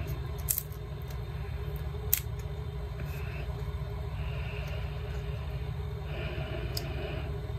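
Thin steel pick scraping and clicking along the seam of a smartphone's plastic frame as it is pried away from the body, with a few short scrapes and three sharp ticks. A steady low hum sits underneath.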